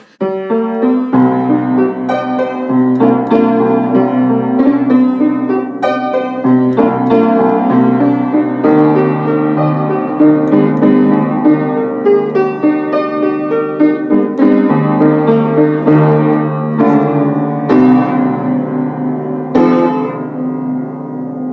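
Music led by piano, with many quick notes, easing down in level near the end.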